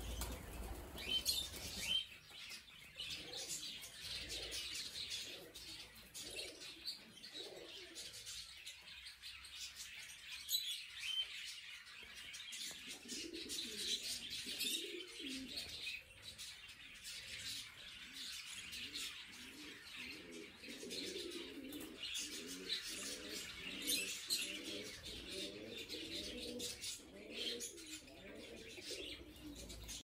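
Budgerigars chirping and chattering in short, high notes, joined from about halfway through by a fast run of low, warbling chatter.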